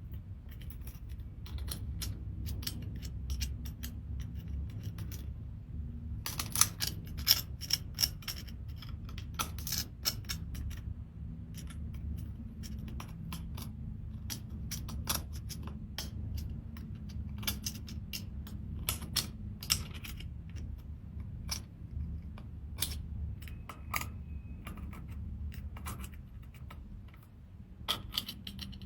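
Seashells clicking, tapping and scraping against each other and hard surfaces as they are handled and cleaned, in irregular sharp clicks that are busiest from about six to eleven seconds in, over a steady low hum.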